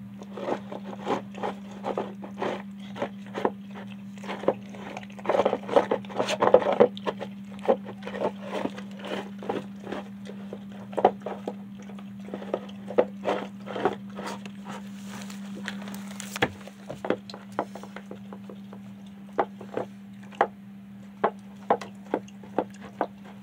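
Dog eating from a plastic food bowl, with wet smacking chews and licks and its tongue and teeth knocking the bowl about twice a second. The eating is busiest a few seconds in and thins out toward the end as the bowl empties. A steady low hum runs underneath.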